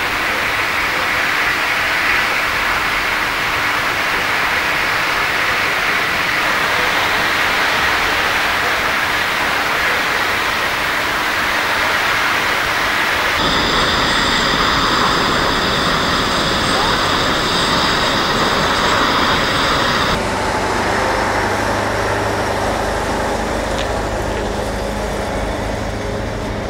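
Steady rushing noise of a large fuel fire burning in railway tank cars. After a cut, more fire noise overlaid by a steady high whine. From about two-thirds of the way through, a fire engine's motor runs with a low steady hum.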